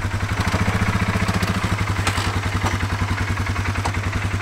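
Four-wheeler (ATV) engine running at a steady idle with a fast, even putter.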